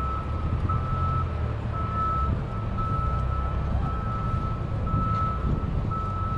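Vehicle backup alarm beeping steadily, about one half-second beep each second, over the low rumble of a heavy vehicle's engine.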